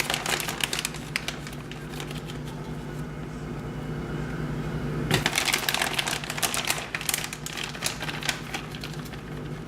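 Quick light clicks and rustling of food prep with plastic: shredded cheese being scooped and dropped into plastic salad containers. The clicking comes in clusters, thickest about halfway through, over a steady low hum.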